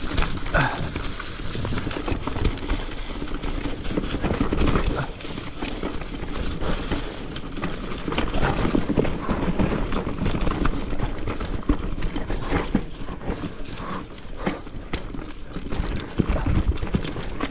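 Marin Rift Zone 3 full-suspension mountain bike descending a forest singletrack: tyres rolling over leaf litter and roots, with frequent knocks and rattles from the bike.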